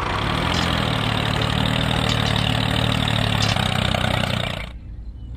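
Engine idling steadily with a low, even hum, which fades out about a second before the end.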